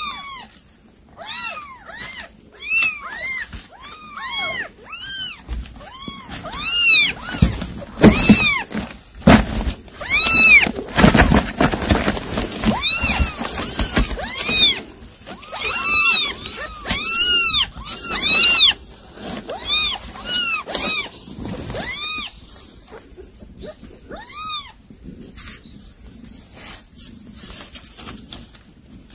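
Domestic cats meowing again and again: many short, high calls, each rising and falling in pitch, coming thick and fast, with a stretch of scuffling and rustling in the middle. The calls die away a few seconds before the end.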